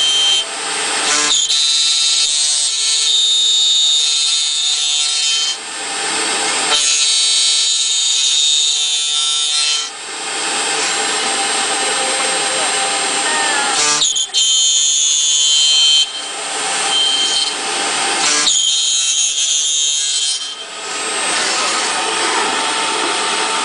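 A CNC copy router's high-speed spindle milling holes and grooves in an aluminium profile. Several cutting passes with a high-pitched screech alternate with plainer, noisier stretches in between.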